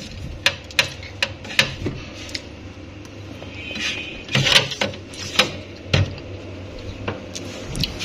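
Light clicks and knocks of a plastic basket being handled and set down on a refrigerator shelf, about a dozen separate taps with a short scraping slide about four seconds in.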